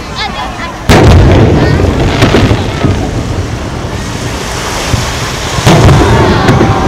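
Aerial firework shells bursting: a sharp loud bang about a second in, with a long low rumble rolling on after it, then smaller pops and a second loud bang near the end.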